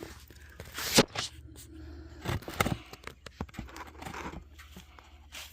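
Old engine oil running out of the drain hose into a drain pan, with several sharp knocks and scrapes as the drain plug and hose are handled; the loudest knock comes about a second in.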